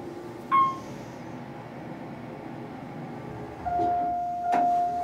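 Elevator car sounds: a short bright ding about half a second in, then a steady humming tone starting about three and a half seconds in, with a sharp knock about a second later.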